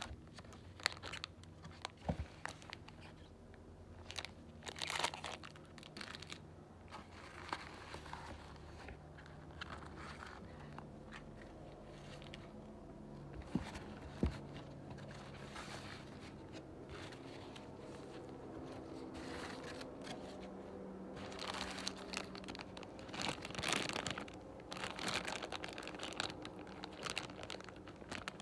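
Paper and plastic food packaging rustling and crinkling as it is handled in and out of a cardboard Happy Meal box, with a few sharp taps. Near the end a sealed plastic toy bag crinkles.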